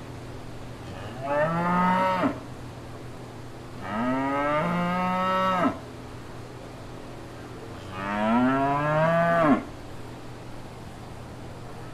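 Cow mooing three times, each moo one to two seconds long and rising in pitch.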